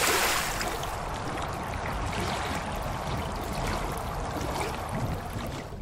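Water sound effect: a splash, then a steady rush of running, pouring water that drops away at the very end.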